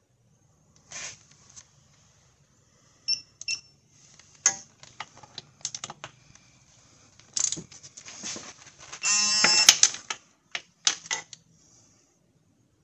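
Ratchet and torque wrench working on wheel hub bolts: scattered sharp metallic clicks and clinks, a couple of them ringing briefly. A fast ratcheting burst about nine seconds in is the loudest sound.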